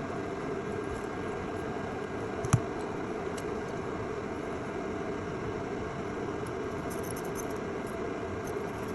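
Steady whirring background noise, like a fan running, with one sharp click about two and a half seconds in and faint crackling near the end.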